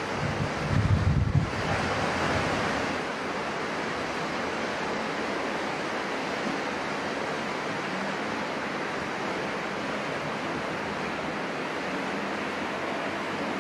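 Steady wind rushing over a camcorder's microphone, with a heavier gust buffeting it about a second in.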